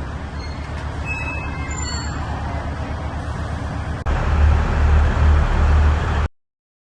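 Narrow-gauge toy train running, a steady low rumble with a few brief high squeaks. About four seconds in it jumps abruptly to a louder, rougher rumble, then cuts off about two seconds later.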